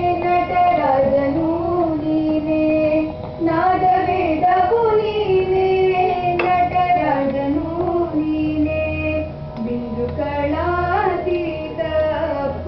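A high female voice singing a slow, ornamented melody in Indian classical style, with short pauses between phrases.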